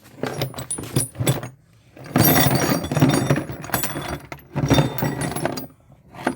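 Clean brass scrap pieces being tipped out of a container, clattering and jangling against each other: a few scattered clinks first, then two long spills of metal clatter.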